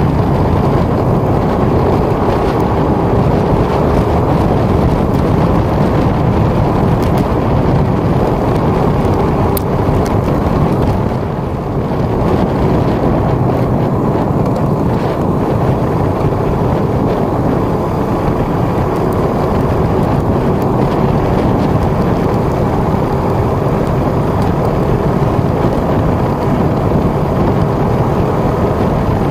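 Benelli RFS150i motorcycle's 150 cc single-cylinder engine running at a steady cruise of about 45–50 km/h on a gravel road, mixed with heavy wind noise on the chest-mounted microphone. The noise eases briefly about eleven seconds in.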